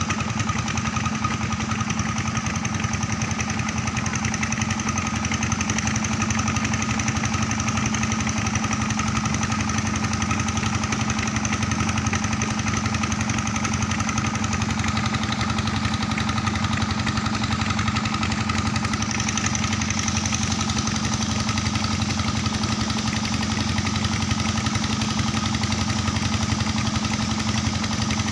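Engine of a river sand-suction pump machine running steadily at a constant speed.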